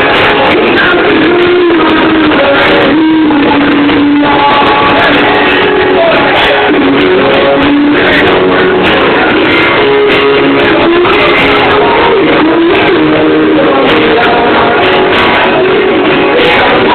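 Live band music: a man singing a melody into a microphone over a strummed acoustic guitar, loud and steady.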